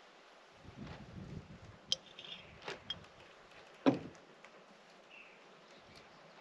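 A metal spoon clinking against a small glass jar and other light knocks of camp kitchen items being handled on a table. The sharpest clink comes just before four seconds in, after a short rustle about a second in.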